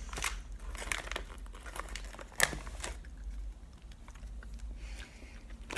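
Plastic candy packet crinkling and rustling in several short bursts, the loudest about two and a half seconds in, then going quiet.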